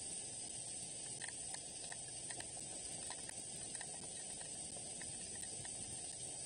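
Steady hiss of rain falling, with scattered faint ticks of drops.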